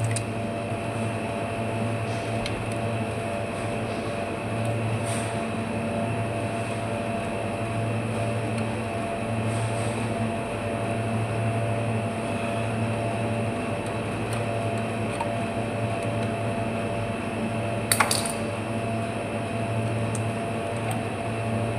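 Steady low mechanical hum of a running motor, with a single sharp click about eighteen seconds in.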